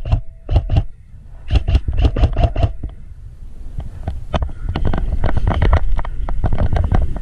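Bursts of rapid clicking from an airsoft rifle firing, about seven shots a second, over a low wind and handling rumble. In the second half these give way to irregular knocks and rustling as the player moves.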